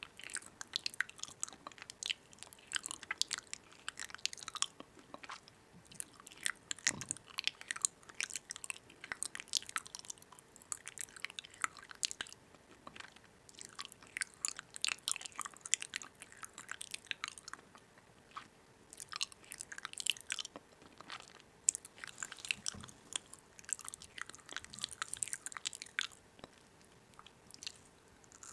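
Close-up chewing and crunching of food: irregular clusters of crisp, crackly clicks with short pauses between bites.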